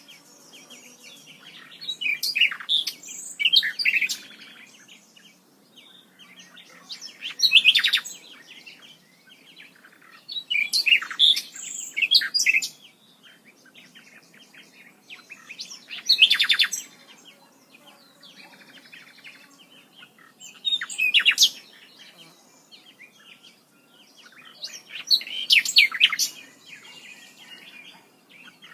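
Birds chirping and singing in short bursts every few seconds, with a faint steady outdoor background between the calls.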